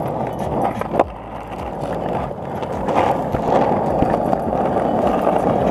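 Skateboard wheels rolling over rough asphalt, a steady rolling noise, with a sharp click about a second in.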